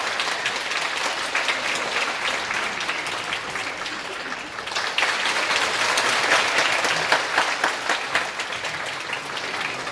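Audience applauding: dense clapping that swells about five seconds in, then begins to die away near the end.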